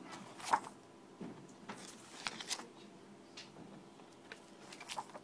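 Pages of a book being handled and turned: short paper rustles and flicks, a few separate bursts with quiet between.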